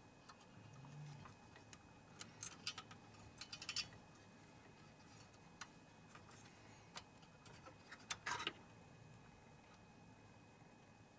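Faint scattered clicks and small plastic rattles from hands working a wire connector into place inside a projector, with two short clusters of quick ticks, the second near the end the sharpest.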